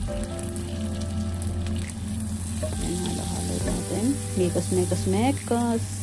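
Butter and sliced garlic sizzling in a nonstick frying pan, stirred with a spatula. A tune of gliding pitched notes comes in about halfway and is the loudest part.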